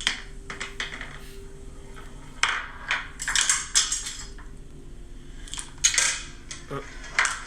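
Clattering and knocking of a chain-reaction (Rube Goldberg) machine in motion: small objects hitting and rattling against each other and the tabletop, in several quick bursts, at the start, a longer run a few seconds in, again about six seconds in and near the end.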